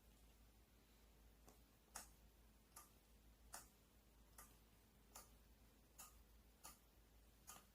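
Faint, sharp switching clicks from a DIANQI F21-E1 wireless crane remote control set under test, about nine of them at a little more than one a second, as its switches are worked.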